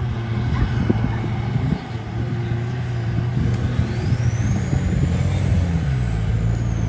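Off-road vehicle engine running and revving, its pitch rising and falling. There are sharp knocks and clatter in the first two seconds, and a faint high whistle rises and then falls in the second half.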